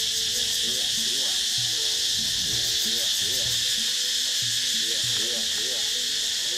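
Dense, steady chorus of jungle insects: a loud high-pitched shrill drone, with softer low repeating sounds underneath.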